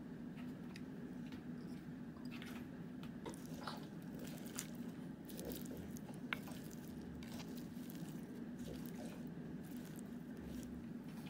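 Lettuce salad being tossed in a bowl: scattered soft crunches and squishy rustles of the leaves, over a steady low hum.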